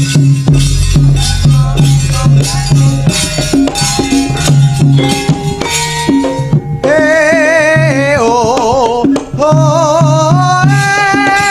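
Javanese gamelan band accompanying a wayang kulit show, playing the requested piece: a driving hand-drum (kendang) pattern over steady low bass notes. About seven seconds in, a high wavering melody line enters, dropping out briefly and returning.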